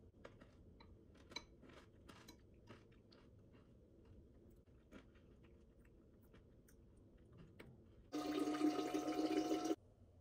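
Faint clicks of a metal spoon against a ceramic bowl while eating. About eight seconds in, a loud rushing noise with a steady hum starts abruptly and cuts off under two seconds later, followed by a sharp click.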